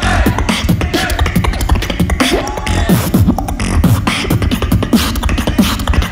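Competitive solo beatboxing into a handheld microphone, amplified through a PA: a fast, steady stream of mouth-made kick, snare and click sounds over deep bass, with pitched vocal glides woven in.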